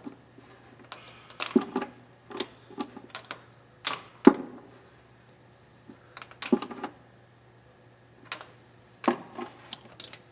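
Irregular metallic clicks and clanks from hand tools as spark plugs are tightened into a cast iron cylinder head, some in quick clusters, with one louder knock about four seconds in.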